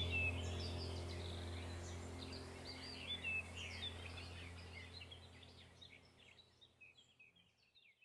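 Background soundtrack of birds chirping over a low steady hum, the whole track fading out gradually to silence near the end.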